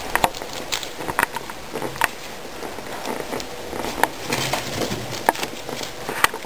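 Guinea pigs munching lettuce leaves: irregular crisp crunching and tearing clicks.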